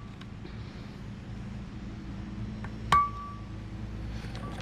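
Hammer striking a screwdriver to drive a universal joint out of a front axle shaft: one sharp metallic strike about three seconds in, with a short ringing tone after it.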